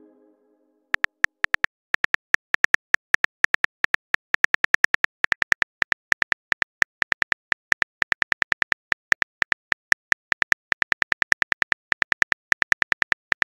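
Virtual-keyboard typing clicks from a texting app: a fast run of short, high ticks, one for each typed letter, about five a second, starting about a second in.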